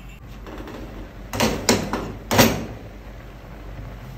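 Glass lid taken off a metal cooking pot: three sharp clinks and knocks over about a second near the middle, over the steady low bubbling of the pot at a rolling boil.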